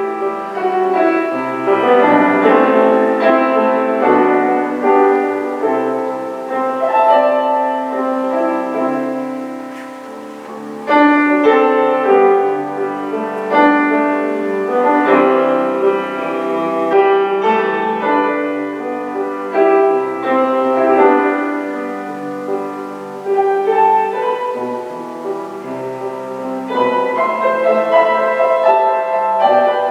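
Solo piano playing a slow classical-style piece in chords; it fades about ten seconds in, then comes back with a loud chord.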